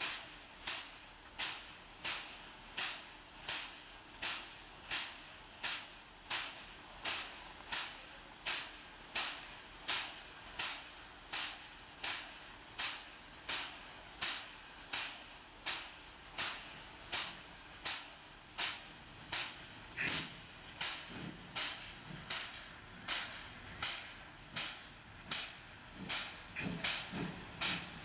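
Pt47 steam locomotive standing with steam hissing in short, very regular puffs, about one and a half a second.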